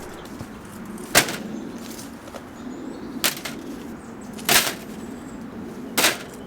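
Four sharp wooden cracks and knocks, spaced unevenly about one to two seconds apart, as loosened beading strips and panels come off a timber shed.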